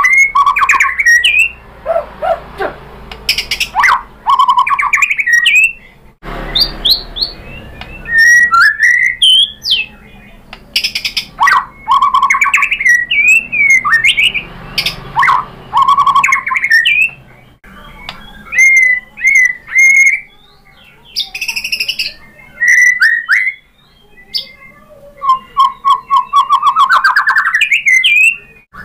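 White-rumped shama (murai batu) in full, fired-up song, running through a varied repertoire of loud whistled phrases, sweeping notes and rapid chattering trills, with short pauses between phrases. Near the end a fast trill rises steadily in pitch.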